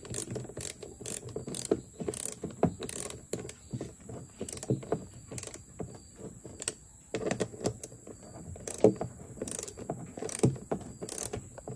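Hand socket ratchet clicking in quick runs of strokes as bolts are tightened, about two or three clicks a second, with a short pause midway.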